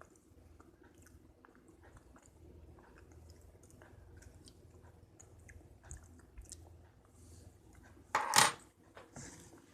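Quiet chewing of a bite of soft microwave-baked brownie, with faint small clicks of a fork against the baking pan, then a brief louder noise about eight seconds in.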